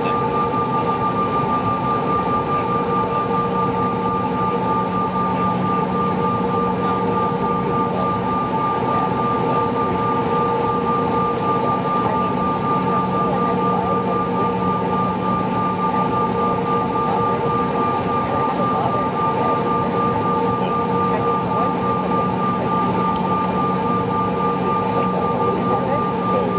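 Cabin noise of a Mitsubishi CRJ-900LR regional jet taxiing, its rear-mounted turbofans at taxi power: a steady high whine over a constant low rumble.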